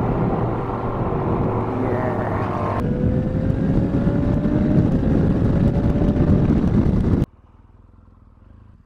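Motorcycle running on the road, its engine heard under heavy wind and road noise. About three seconds in the sound changes abruptly, and then the engine note climbs slowly. The sound cuts off suddenly about seven seconds in, leaving only a faint background.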